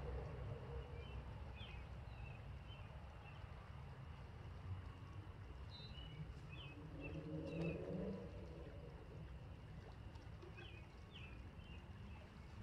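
Faint bird chirps, short calls in small clusters a few seconds apart, over a low steady outdoor rumble.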